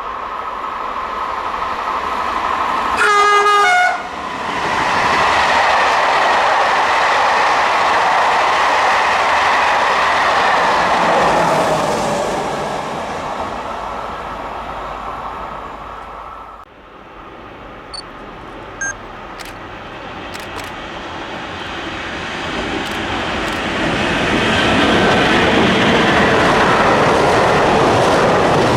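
A train passing at speed on the main line, with one short horn blast about three seconds in. About halfway through the sound cuts, and another train approaches and goes by with a steady rush of wheels on rail.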